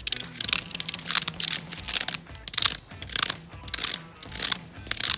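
Background music with a rhythmic crunching that recurs about twice a second.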